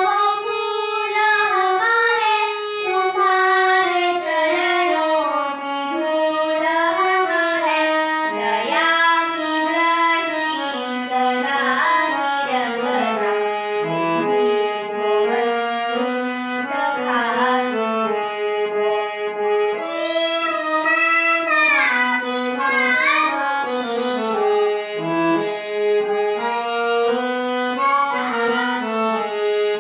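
A young girl singing a devotional prayer song, with a held, reedy instrumental accompaniment.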